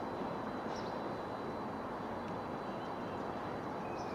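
Steady distant rumble of an approaching GB Railfreight Class 66 diesel locomotive, its two-stroke EMD V12, and its freight wagons. A couple of faint small-bird chirps come over it, one near the start and one near the end.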